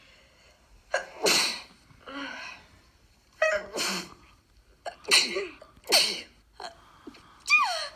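A person sneezing several times in quick succession, a sharp loud burst every second or so, with the last sneeze voiced and sliding in pitch.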